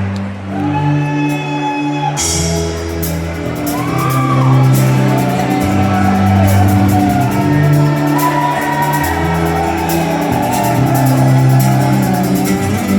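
Live rock band playing an instrumental intro, with held bass notes; the full band, cymbals included, comes in about two seconds in. Audience members shout and whoop over the music.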